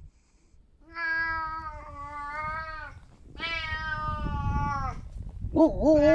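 Domestic cat meowing: three long, drawn-out meows one after another, the third one louder.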